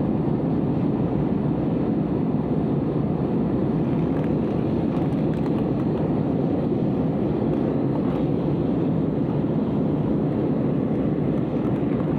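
Steady, even rumble of an airliner's jet engines and airflow, unchanging in level throughout.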